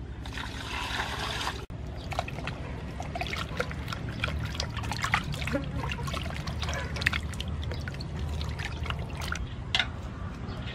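Water poured from a plastic bowl into an aluminium basin of raw oxtail, lasting about a second and a half. Then water splashing and dripping in short irregular bursts as the oxtail pieces are washed and turned by hand in the basin.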